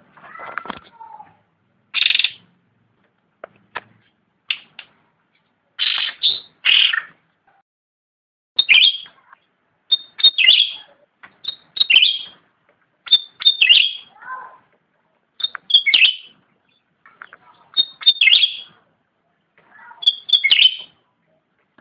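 Cucak rante songbird singing in full voice: short, bright chirping phrases repeated every second or two, with a lower warbled phrase about two-thirds of the way through.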